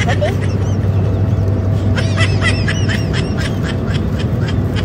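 Steady drone of an airliner cabin in flight: engine and airflow noise with a low hum. About two seconds in, a quick run of short, high squeaks.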